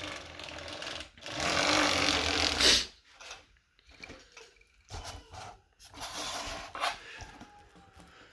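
Plastic LEGO excavator tracks turned by hand, the small track links clattering and ratcheting, loudest for a couple of seconds early on, then a few scattered clicks.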